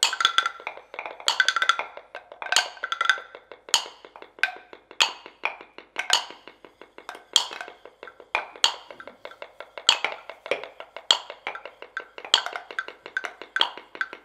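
Seven mortars played as percussion with their pestles: a dense stream of quick knocks and taps, with a loud accented stroke about every second and a quarter, some accents ringing with a short tone.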